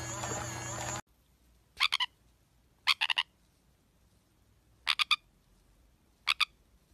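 Sun conure giving four short bursts of rapid, croaky chirps, each a quick stutter of two to four notes, a second or two apart, as it is tickled on its belly.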